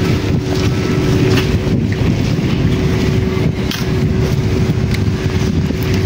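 Steady drone of construction-site machinery with a constant hum, mixed with wind buffeting the microphone.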